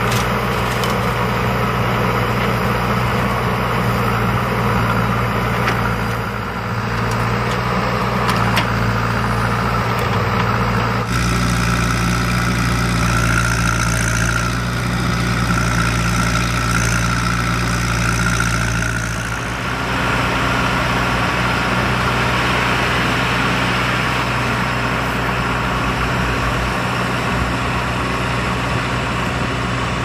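Diesel engines of a JCB backhoe loader and a Tata tipper truck running steadily during soil loading, the sound changing abruptly about a third and two-thirds of the way through.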